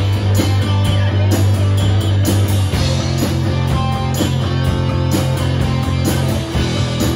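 Rock band playing live: an electric bass holds a low note that steps up to a higher one about three seconds in, under guitar and drums.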